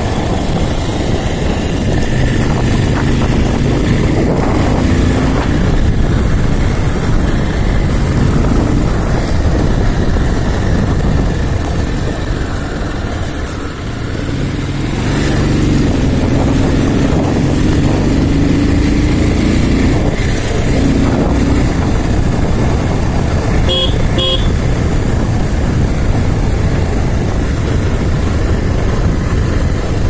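Motorcycle engine running under way, easing off about halfway through and then picking up again as the pitch rises. Two short vehicle-horn toots come about three-quarters of the way in.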